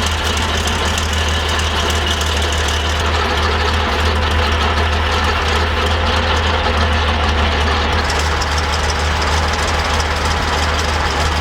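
Tiger 131's Maybach V12 petrol engine idling steadily with a deep low rumble, running after its start while the new fan drives are tested.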